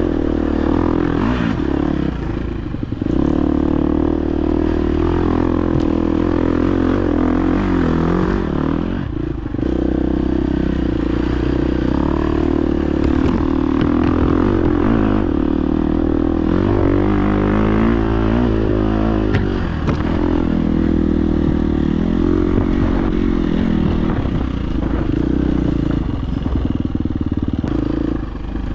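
Dirt bike engine running under load on a trail ride, its pitch rising and falling steadily as the throttle is worked, with some clatter from the bike over rough ground.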